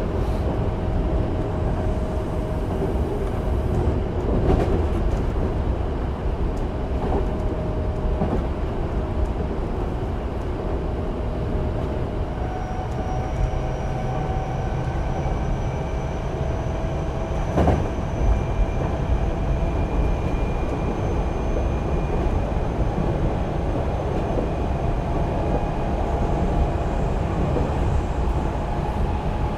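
Running sound of a Hankyu 8000 series electric train with Toshiba GTO-VVVF traction control: a steady rumble of wheels on rail with a few knocks. From about twelve seconds in, a faint whine rises slowly in pitch as the train gathers speed.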